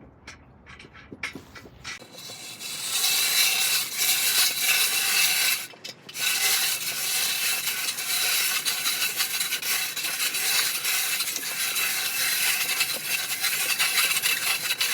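Ice auger boring a fishing hole through lake ice, its blades grinding and rasping steadily. It stops briefly about six seconds in, then goes on.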